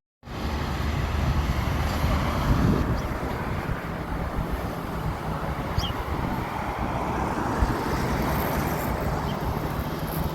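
Steady outdoor rumble with wind on the microphone, cutting in abruptly at the start.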